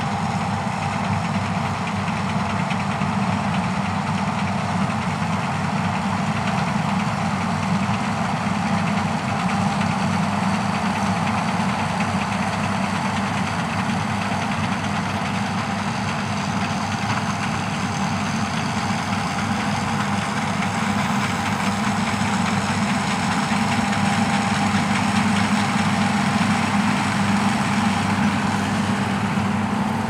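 Steady engine drone from a John Deere C670i combine harvesting wheat and a John Deere 6215R tractor carting alongside. The drone is continuous and grows slightly louder near the end.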